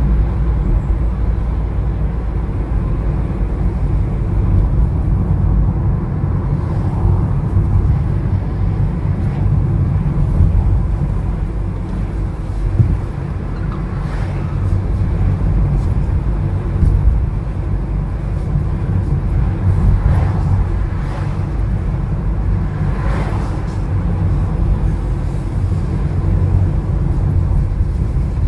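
A car's low, steady engine and road rumble heard from inside the cabin while driving at town speed, with a few faint brief swells partway through.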